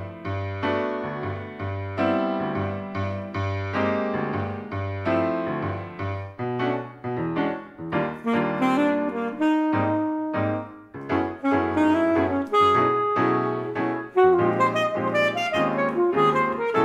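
Alto saxophone and piano duo playing a jazz-inflected piece. Rhythmic piano chords over deep bass notes open it, and the alto saxophone enters with a held melodic line about halfway through.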